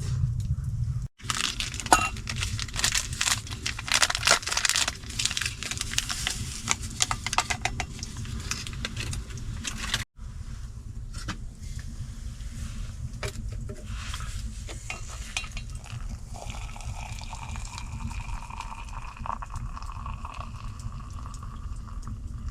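Repeated light clinking and clicking of utensils against cookware, dense for most of the first half and sparser later, over a steady low rumble; two faint steady tones come in near the end.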